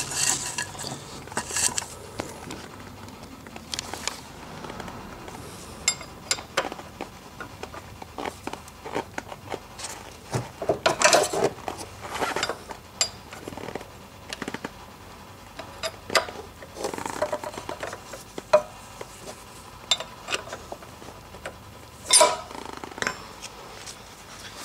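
Box-end wrench clinking and clicking on a scooter engine's 19 mm oil drain bolt as the bolt is loosened. The metallic clatters are scattered, with the busiest bursts about 11 seconds in and again near 22 seconds.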